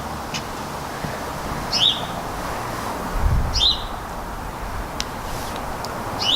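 A songbird calling repeatedly, a short two-part high chirp about every two seconds, over steady outdoor background hiss, with a few faint clicks and a brief low rumble about three seconds in.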